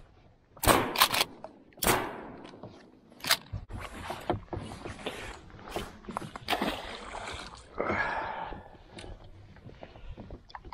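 Sharp knocks and clatter of gear being handled against a plastic kayak hull, several loud ones in the first two seconds and lighter rattles after. A short stretch of noise near the eight-second mark comes as a thrown grapnel line pays out and lands in the water.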